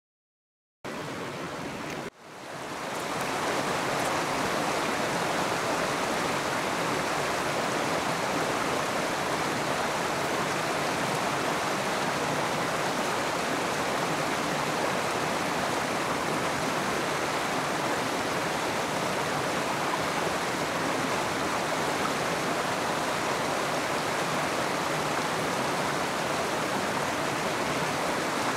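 Mountain river running over rocks: a steady rush of flowing water. It starts just under a second in, drops out for a moment about two seconds in, then swells back and holds steady.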